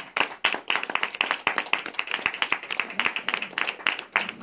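A small audience applauding: many hands clapping quickly and unevenly, the claps overlapping throughout.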